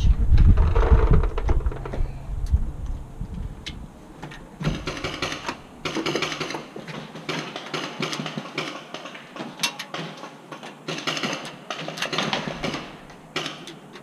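Low rumble for the first couple of seconds, then irregular bursts of rapid sharp clicking pops from about four seconds on: paintball markers firing.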